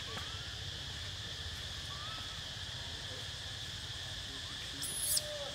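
Steady chorus of insects, a high even drone, with a couple of faint short chirps. Near the end comes a short, high-pitched squeal.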